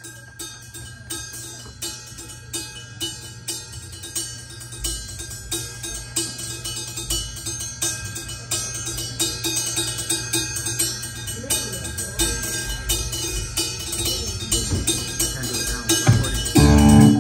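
Live rock band's intro: the drummer keeps a steady rhythm of bright metallic strikes over a steady amplifier hum, slowly getting louder. About a second before the end, the band comes in together with a much louder sustained chord.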